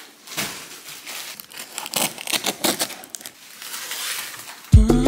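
Large cardboard box being unpacked: cardboard rubbing and scraping, and the plastic wrap inside crinkling in irregular bursts. Loud music with a strong beat comes in near the end.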